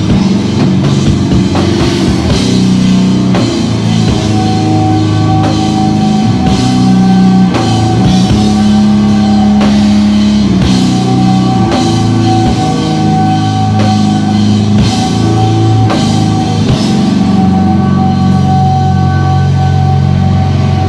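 Live rock band playing loudly: drum kit, bass and electric guitar, with a long held guitar note entering about four seconds in over steady drum hits.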